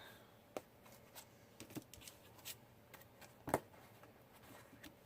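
Faint, scattered rustles and light taps of scrapbook paper sheets being handled and sorted through, with one sharper tap about three and a half seconds in.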